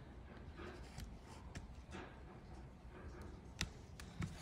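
Faint scraping and snicking of a razor blade trimming small leftover pieces of rubber off a cut plastic edge, with a few sharp clicks.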